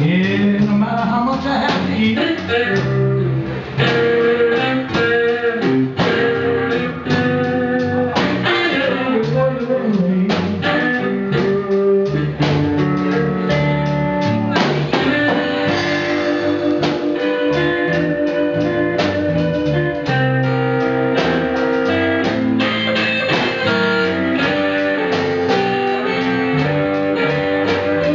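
Music laid over the soundtrack: a guitar-led tune with a steady beat.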